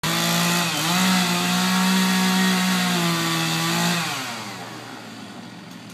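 Chainsaw running at high revs while cutting a standing tree for felling, with a brief dip in pitch near the start. About four seconds in the throttle is released and the engine winds down toward idle.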